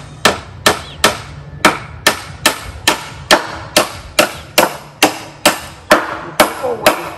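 Hammer driving nails into the wooden plank top of a table, a steady run of sharp blows about two to three a second.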